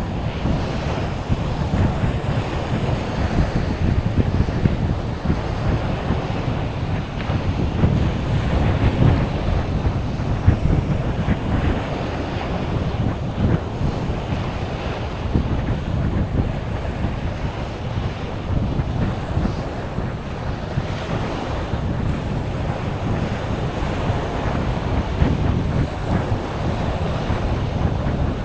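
Wind buffeting the microphone in a steady low rumble, over the wash of small waves breaking on a beach.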